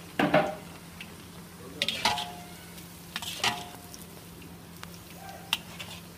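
A metal frying skimmer scraping and clinking against an iron kadai four times, some strokes leaving a short metallic ring, as bread cubes are stirred in hot oil. The oil sizzles softly and steadily underneath.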